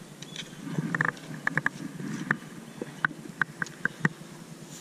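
Handling noise from a lip-grip fish scale clamped on a largemouth bass: about a dozen short clicks and light metallic taps, some with a brief ring, while the fish is weighed.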